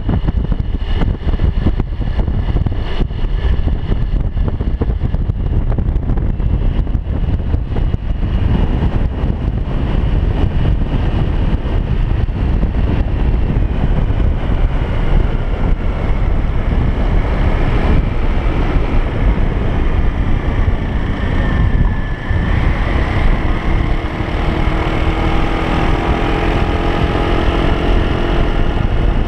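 Loud, steady rumble of a moving vehicle with wind buffeting the microphone. From about twenty seconds in, engine tones glide up and down.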